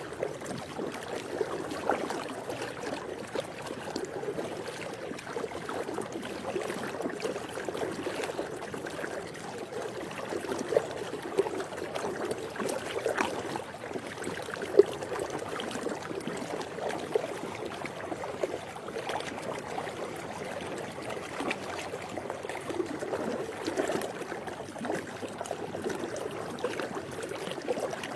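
Swimming pool water lapping and trickling in a steady wash, dotted with small irregular splashes, one a little sharper about halfway through.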